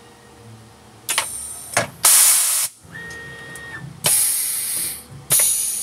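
Tormach automatic tool changer on a PCNC 440 mill loading a tool: sharp clicks and loud bursts of hissing air, about four in all, with a short steady whine between the bursts.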